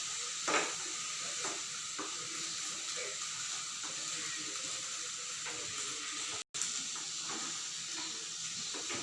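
Mixed vegetables sizzling in melted butter in a frying pan: a steady frying hiss with a few faint clicks. The sound drops out for a split second about six and a half seconds in.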